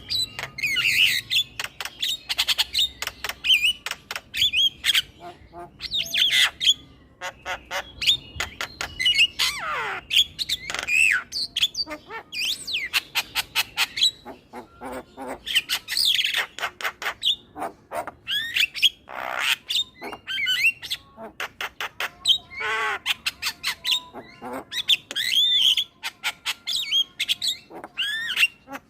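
Male Javan myna chattering: a rapid, unbroken run of clicks and harsh squawks mixed with short whistled notes that slide up and down.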